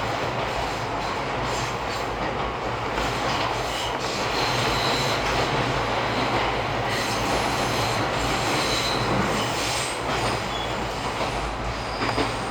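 Izuhakone Railway 3000-series electric train running, heard from inside the car: a steady rumble of wheels on rail, with brief high-pitched wheel squeals on curves about four and nine seconds in.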